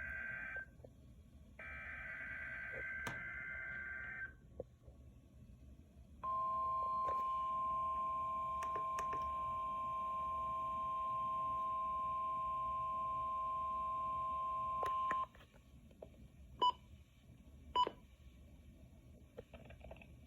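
NOAA Weather Radio weekly test signal: two raspy SAME digital header bursts, then the steady 1050 Hz warning alarm tone held for about nine seconds, followed by two short beeps.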